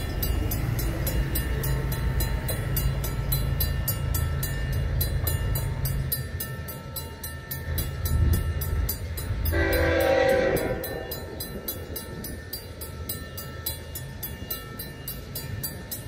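A Safetran mechanical crossing bell rings steadily with rapid, even strokes while the crossing gates lower. An approaching freight train's locomotive air horn sounds one chord of about a second, around ten seconds in, over a low engine rumble.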